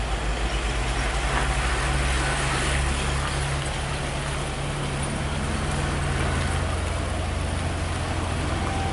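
Heavy truck's diesel engine running steadily at low revs, with road noise.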